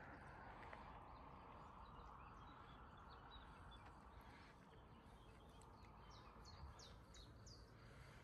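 Faint birds chirping over quiet outdoor ambience, with a short run of high chirps about six to seven seconds in.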